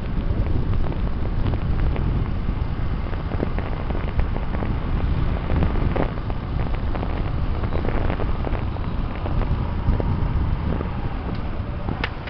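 Motorcycle riding along a road: wind buffeting the microphone, with engine and road noise underneath. A sharp click near the end.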